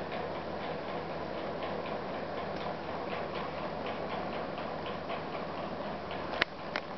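Faint, rapid ticking, about three ticks a second, over steady room noise, with two sharp clicks close together near the end.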